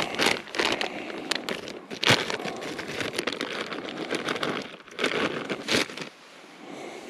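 Plastic food packaging, such as a chip bag, crinkling and rustling as it is handled, with sharper crackles about 2 s in and again around 5 to 6 s, then quieter near the end.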